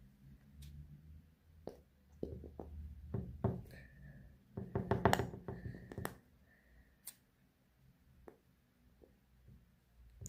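Small clicks and knocks of objects being handled on a tabletop, with a quick run of taps about five seconds in.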